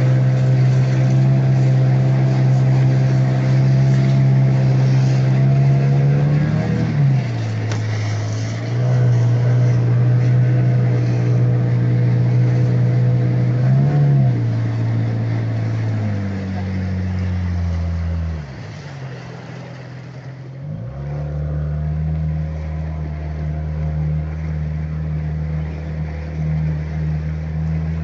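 Outboard motor of an inflatable boat running steadily under way. It is throttled back briefly twice, about seven and fourteen seconds in, drops almost to idle about eighteen seconds in, then picks up again to a steady lower pitch.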